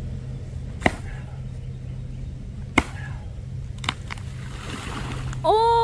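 Three sharp axe strikes into a tree trunk, the second coming about two seconds after the first and the third a second later, over a steady low hum. Near the end a single drawn-out vocal call rises and then falls in pitch.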